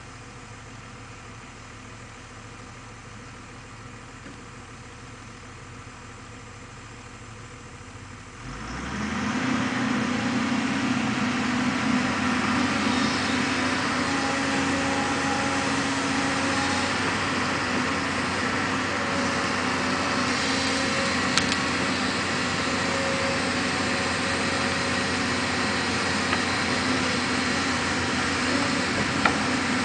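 Volvo crawler excavator's diesel engine, idling low at first, then throttled up about a third of the way in and running steadily at working revs.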